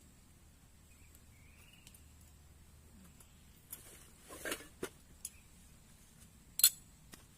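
A few sharp clicks and knocks over a quiet background, several in a cluster a little past the middle and the loudest about six and a half seconds in. No steady rain is heard.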